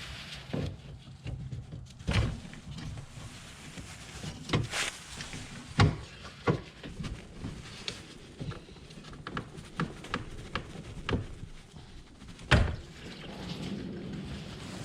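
Irregular sharp clicks and knocks of hands working on a car's plastic coolant expansion tank and its hose connections, with a low hum underneath.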